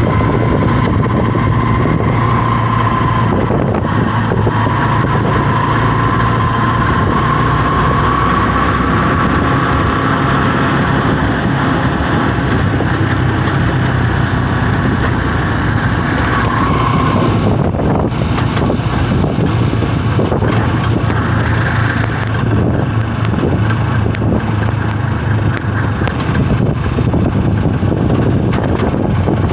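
Engine and road noise heard from inside an open-sided vehicle moving at speed: a steady low drone under a noisy rush, with a wavering higher whine that stops about halfway through.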